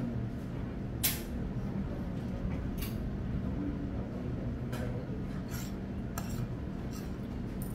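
Metal fork and spoon clinking and scraping against a dinner plate in scattered single clinks, the loudest about a second in, over a steady low background hum.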